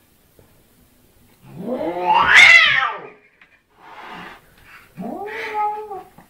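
Domestic cat yowling at its own reflection in a mirror, taking it for a rival cat: one long yowl that rises and then falls in pitch, a short noisy sound, then a second, shorter yowl near the end.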